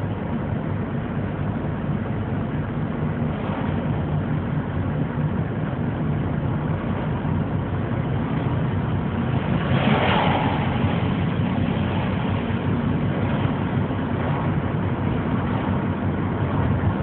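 Steady road and engine noise inside a moving car's cabin, with a louder whoosh about ten seconds in as an oncoming semi truck passes.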